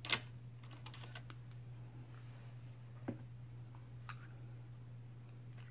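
A few short clicks and light taps as makeup things are picked up and handled ahead of nose contouring, the loudest just after the start, over a steady low hum.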